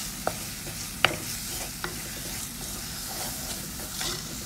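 Onion-tomato masala sizzling as it fries in oil in an earthenware pot (chatti), stirred with a spatula that knocks sharply against the pot four times, loudest about a second in.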